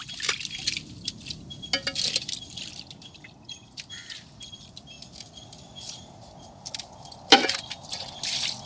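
Raw crab pieces being washed by hand in basins of water: splashing and dripping with small clicks and clinks of shells against the pots. About seven seconds in there is a louder knock, and water is then poured over the crabs in the aluminium pot.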